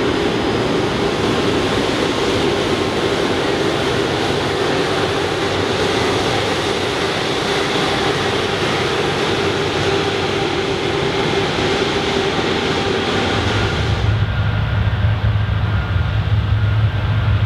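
Jet airliner engines at taxi power as an Airbus A330 rolls close by: a loud, steady roar with a held whining tone. About 14 seconds in the sound changes suddenly to a deeper, duller jet rumble.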